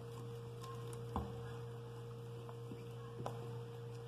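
A steady low electrical hum, with a few faint knocks and scrapes of a spatula against a plastic bowl as thick vegetable batter is scraped out of it, the clearest about a second in and again about three seconds in.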